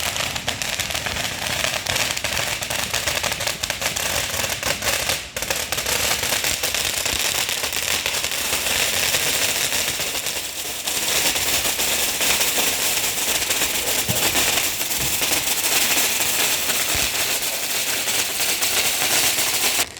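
Fireworks crackling: a dense, continuous crackle of many rapid small pops.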